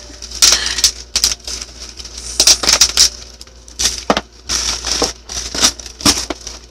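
Plastic bubble wrap around a parcel being handled and squeezed, crinkling and crackling in quick, irregular sharp bursts.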